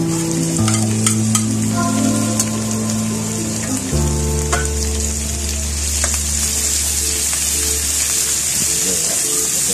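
Ground meat and sliced onions sizzling in hot oil in a wok, stirred with a plastic spatula that clicks and scrapes against the pan; the sizzle grows louder about six seconds in. Background music with sustained low notes plays underneath.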